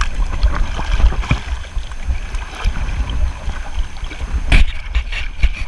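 Wind buffeting the microphone in gusts, over shallow sea water sloshing around a wading angler. A sharp knock sounds once, about four and a half seconds in, followed by a few lighter clicks.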